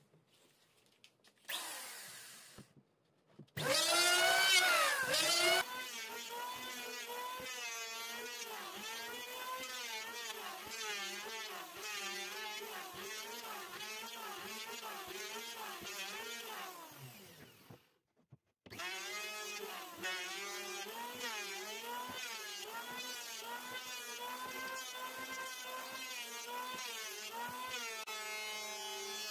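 Electric hand planer (Stanley) starting up about three and a half seconds in with a rising whine, then running with its pitch dipping and recovering as the blades cut along a wooden board. Its pitch falls and it stops a little past the middle, then it starts again about a second later and keeps planing.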